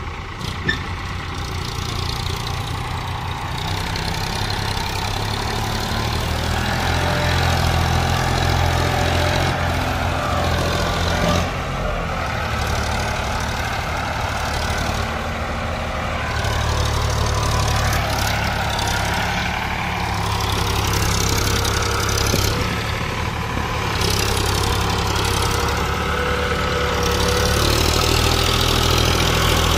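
Sonalika DI 745 III tractor's three-cylinder diesel engine running under load while hauling a loaded trolley, steady and growing louder as it comes closer, its note rising and falling a few times.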